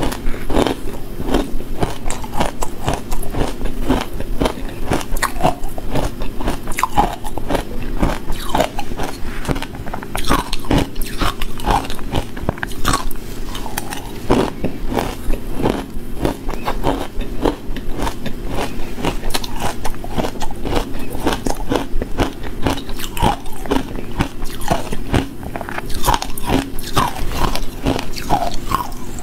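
Crushed matcha-flavoured ice being bitten and chewed close to a lapel microphone: a continuous run of crunches and cracks as each spoonful is broken up in the mouth.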